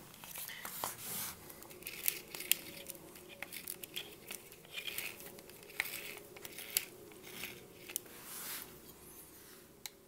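Scattered light clicks, scrapes and rustling of hands and tools working at an opened electric drill's gearbox as grease is packed around the gears.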